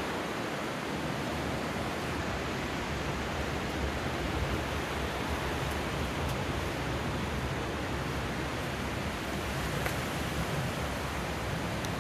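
Water rushing down a reservoir's stone spillway channel: a steady, even rushing hiss, with an uneven low rumble underneath.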